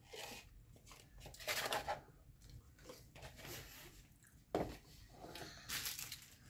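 Faint rustling and crinkling from handling an instant-noodle cup and fork while eating, with one light knock about four and a half seconds in.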